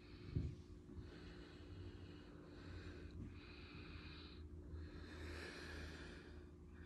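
A person breathing close to the microphone: a run of airy breaths about a second each, over a steady low hum, with a single thump about half a second in.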